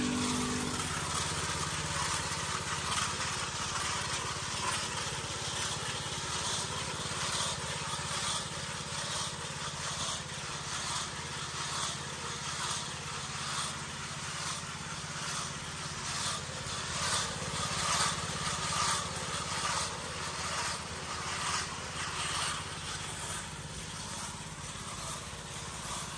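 RATO 6 HP single-cylinder four-stroke petrol engine running steadily on a double power trowel, driving its two gearboxes and trowel rotors. A hiss pulses through it about twice a second.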